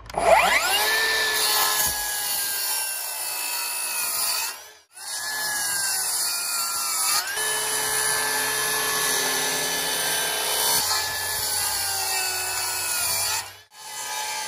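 Makita HS009G 40V XGT brushless 235mm circular saw spinning up with a rising whine, then cutting through timber with a steady whine over a rasping of wood. The sound breaks off sharply twice, about five seconds in and near the end, and starts again each time.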